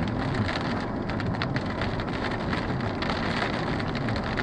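Heavy rain pelting a moving car, heard from inside the cabin: a steady hiss of rain and wet-road noise with many scattered sharp raindrop taps.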